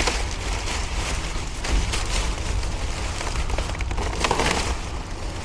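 Plastic trash bags and food packaging rustling and crinkling as they are dug through by hand, with a steady low rumble underneath.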